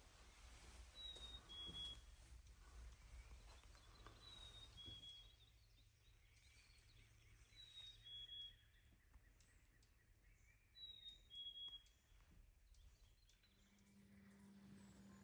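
Faint songbird whistling a clear two-note song, the second note a little lower than the first, four times about three seconds apart.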